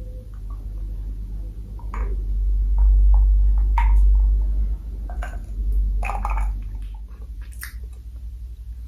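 Scattered light clicks and taps of tableware being handled, over a low rumble that swells in the middle and eases off near the end.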